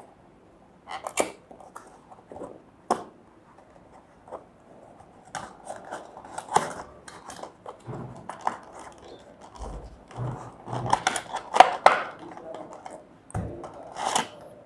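A small cardboard box being opened by hand and its inner packaging drawn out: irregular rustling and scraping of cardboard, with scattered sharp clicks and taps.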